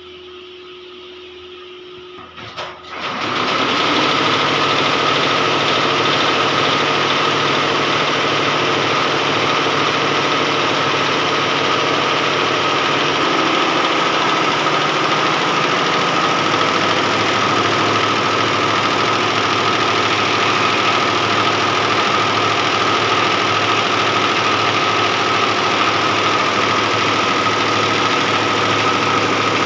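Multi-head industrial embroidery machine starting up about three seconds in, just after a single knock, then running steadily with a dense mechanical clatter and a constant high tone.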